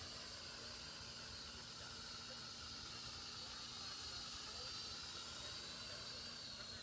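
Small toy quadcopter drone in flight, its rotors making a faint, steady high-pitched whine over hiss, wavering slightly in pitch.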